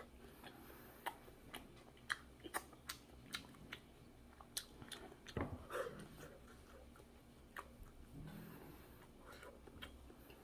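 A person chewing and eating food close to the microphone, with scattered soft clicks and crunches.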